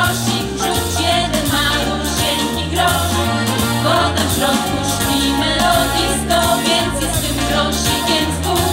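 Women's vocal group singing a song live over an accompaniment with a stepping bass line and a steady beat.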